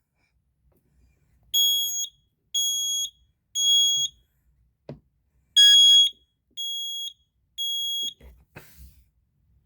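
Kidde 20SD10 smoke alarm sounding in test: two rounds of three high-pitched beeps, each about half a second long, with a pause of about a second and a half between rounds. This is the temporal-3 pattern of a smoke alarm's evacuation signal.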